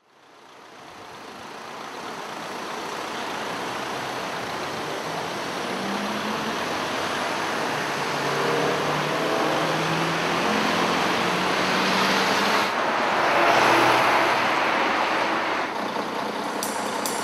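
Road traffic noise fading in from silence: a steady stream of cars and trucks passing, with low engine hum, swelling to its loudest about two-thirds of the way through.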